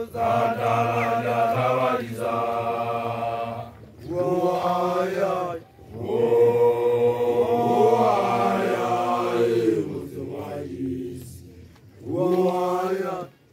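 Group of young Basotho initiates (makoloane) chanting a traditional initiation song together, many voices in long phrases separated by short breaks.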